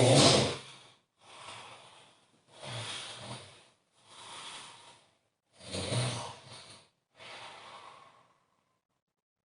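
A person snoring in sleep: six breath sounds about a second and a half apart, every other one louder with a low buzz, the first the loudest. The breathing stops near the end.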